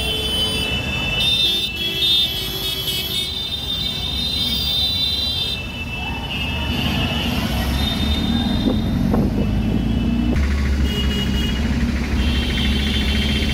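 Engine and road rumble heard from inside a moving van in city traffic, with vehicle horns sounding on and off.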